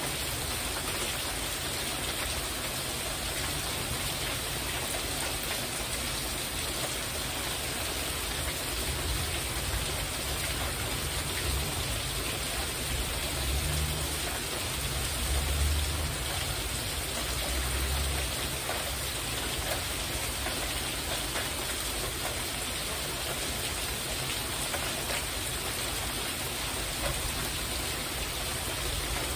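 Heavy rain drumming steadily on a covered porch roof. A low rumble swells briefly around the middle.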